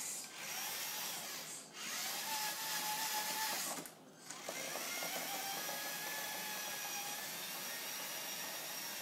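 Electric motor and gear whine of radio-controlled scale trucks driving on a hard floor. It is a steady high whine that cuts out briefly three times as the throttle is let off, then picks up again.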